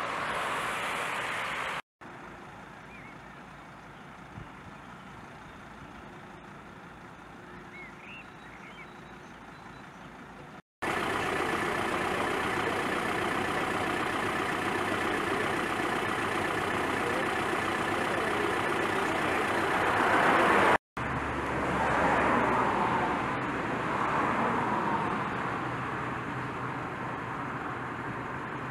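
Outdoor road sound in several cut-together shots: a car passing at the start, then a quieter stretch, then steady vehicle and traffic noise that swells near the twenty-second mark and twice more after.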